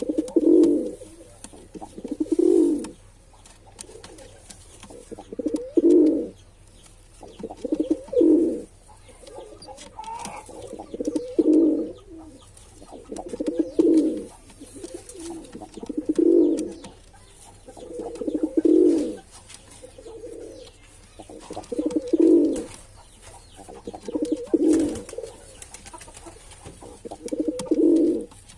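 Male domestic pigeon cooing over and over, low coos about a second long repeating roughly every two seconds.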